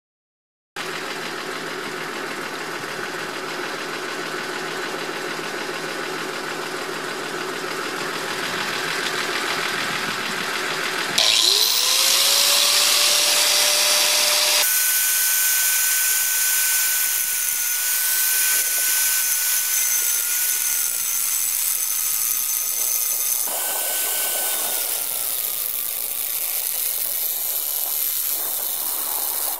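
Electric angle grinder spinning up with a quickly rising whine about a third of the way in. It then grinds a steel railway rail with an abrasive disc, throwing sparks; its high whine sags and wavers as the disc bites. A steady machine hum runs before the start-up.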